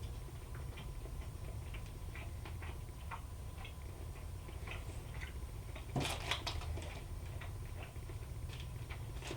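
Mouth sounds of someone chewing a dense, sticky fruit-and-nut bar made of dates, almonds, banana and walnuts: soft irregular clicks and smacks throughout, with one louder, sharper sound about six seconds in.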